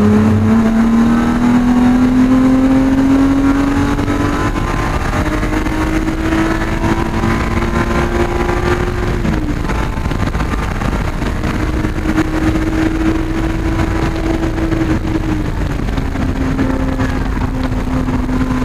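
BMW race car's engine at racing speed, heard from inside the stripped, caged cabin: the engine note climbs steadily under acceleration, falls away about nine seconds in as the driver lifts for a corner, then holds and falls again about fifteen seconds in, over a constant rush of road and wind noise.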